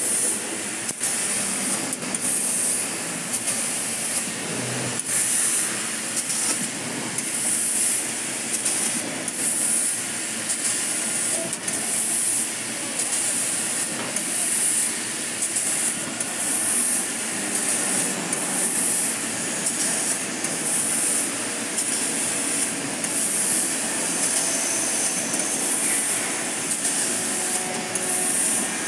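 2 kW CNC laser cutter cutting 3 mm mild steel plate: a hiss of cutting and assist gas that swells and drops about once a second as the head cuts a run of small holes, over a steady lower machine noise.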